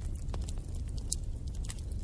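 Wood fire in a fireplace crackling, with frequent sharp snaps and pops over a steady low rumble of the flames.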